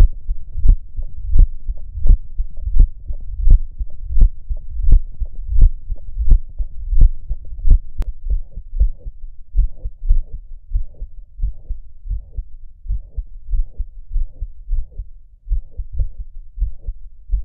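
Heart sounds recorded through an iPhone's microphone with the Stethophone app at the apex of the heart: a steady heartbeat of about 85 beats a minute. About eight seconds in, a second recording takes over, with fuller, longer beats.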